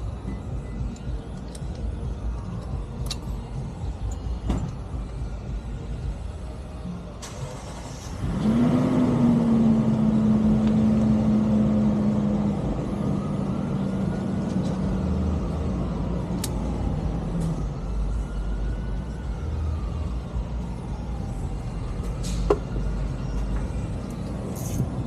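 Road traffic: a steady rumble, with a vehicle whose engine note comes in loud about eight seconds in, holds for a few seconds, then fades away. A few light clicks are heard over it.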